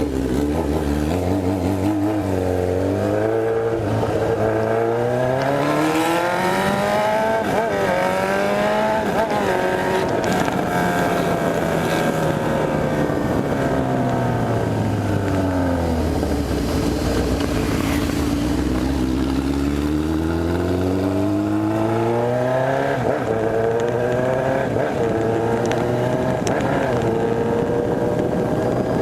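Honda CB1000R inline-four motorcycle engine under way: its pitch climbs in steps as it accelerates through the gears, winds down in a long slow fall as the bike slows through the middle, then climbs again near the end.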